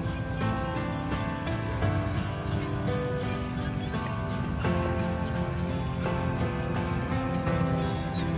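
A continuous high-pitched insect trill, unbroken throughout, over soft background music with slowly changing sustained notes.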